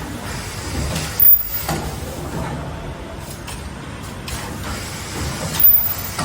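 Automatic ultrasonic welding machine cycling, with mechanical and pneumatic working noise. Two short, loud, very high-pitched weld bursts sound about four seconds apart, one a little over a second in and one near the end.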